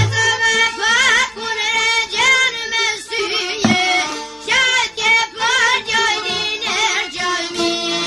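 A man singing an Albanian folk song in short, heavily ornamented phrases with wavering pitch, over light instrumental accompaniment, with a brief pause about halfway through.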